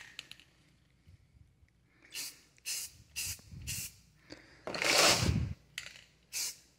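Aerosol spray-paint can hissing in short bursts: four quick squirts, then a longer, louder one about five seconds in and another short one near the end, laying a thin coat of paint.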